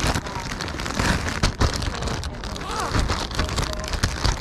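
Clear zip-top plastic bag crinkling and crackling as it is handled close to the microphone.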